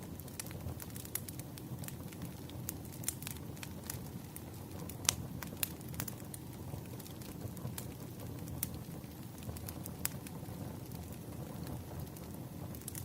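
Wood fire crackling: a steady low rumble of burning logs with irregular sharp pops and snaps, the loudest pop about five seconds in.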